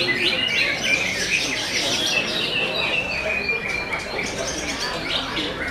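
Many caged green leafbirds (cucak hijau) singing at once in a contest, a dense chorus of fast overlapping chirps and trills.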